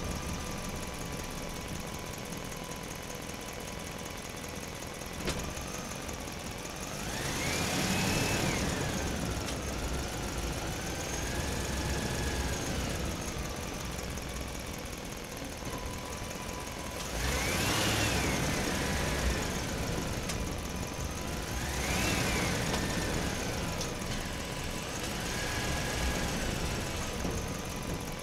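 Small electric motors of radio-controlled toy construction vehicles whining, rising in pitch and falling back several times over a steady running hum.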